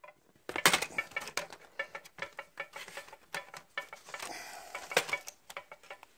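Irregular light clicks, taps and rattles of a laptop's plastic case and metal chassis plate being handled and lifted apart, loudest about a second in and again around five seconds.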